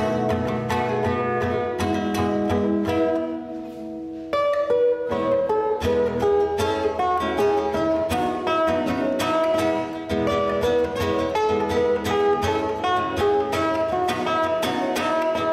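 Instrumental music on acoustic guitars, several plucked at once in a steady rhythm. It thins out briefly about three seconds in, then comes back in full about a second later.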